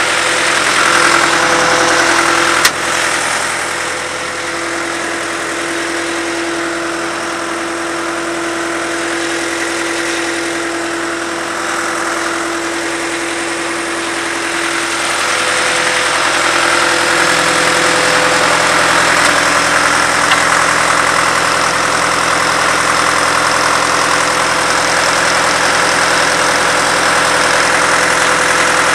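Engine of a 22W cable tool drilling rig running steadily, with a sharp click about two and a half seconds in. About halfway through, the pitch of the running shifts and it grows a little louder.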